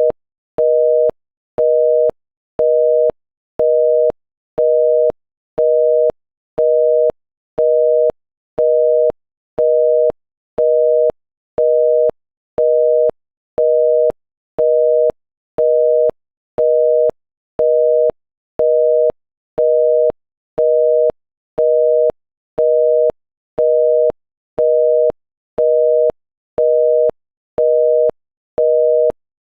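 Korean telephone busy tone: 480 Hz and 620 Hz sounded together, beeping half a second on and half a second off, about one beep a second, with a faint click as each beep starts and stops. It tells the caller that the line called is busy.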